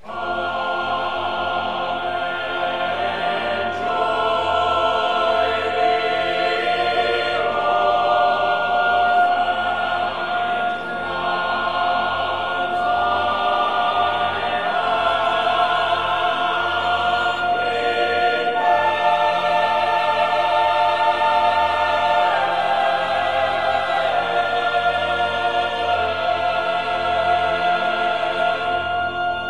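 Choral music: voices singing slow, sustained chords that change every few seconds. It comes in suddenly at the start.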